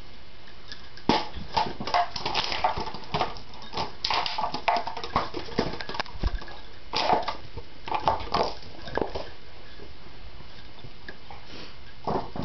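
American bulldog cross bullmastiff making a string of short, irregular noises close up for most of the first nine seconds, then a few more near the end.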